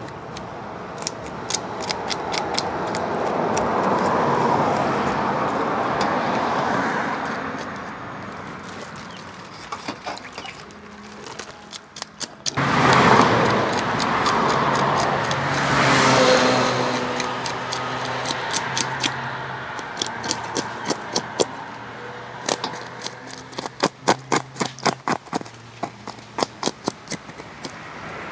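Knife scraping the scales off a fish over a steel bowl: runs of quick sharp rasping strokes, several a second. Under them, vehicles pass by in slow swells, the loudest about halfway through.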